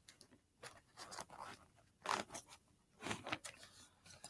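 A fabric bag being handled and its zipper worked in short, scratchy pulls, several separate strokes with small clicks, faint.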